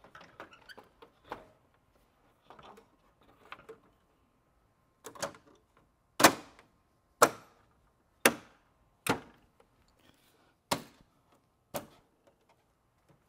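A series of sharp knocks or clicks: a few faint ones, then about seven louder ones roughly a second apart.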